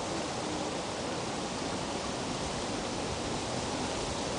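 Steady, even rushing background noise with no distinct events.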